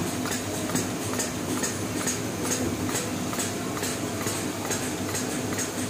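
Automatic syringe dispensing machine at work, with short ticks about twice a second over a steady machine hum.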